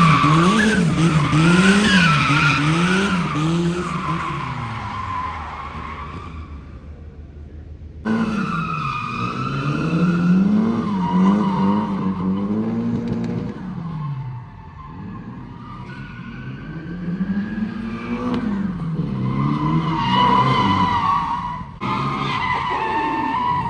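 Car drifting: the engine revs rise and fall in quick swings under the throttle while the tyres squeal. The sound fades, then cuts abruptly to another loud drift run about eight seconds in and again near the end.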